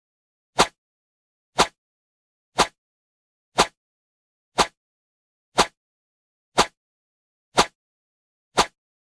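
A short, sharp click-like sound effect repeated evenly once a second, nine times, with silence between: the tick that marks each number as the count goes up.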